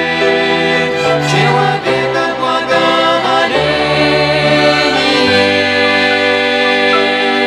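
Christian hymn sung by a small vocal ensemble over instrumental accompaniment, with long held notes and chords changing every second or two.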